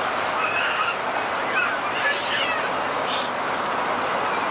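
Speedway grandstand crowd murmuring steadily, with a few single voices calling out above it.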